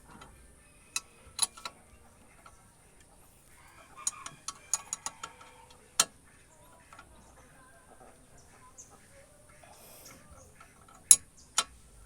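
Sharp, irregular metal clicks and knocks from hand work on a car's brake caliper. There are a few early on, then a quick run of them about four to five seconds in, one more at six seconds, and the two loudest near the end.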